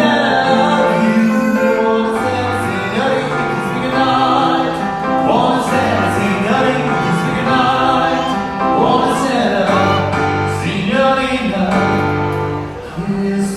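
Live vocal duo singing a classic Italian-style song over musical accompaniment, with a steady bass line underneath.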